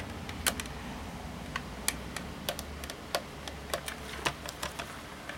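About a dozen light, irregular clicks and taps of small parts being handled: the plastic housing and screws of a handheld 12V car vacuum being put back together.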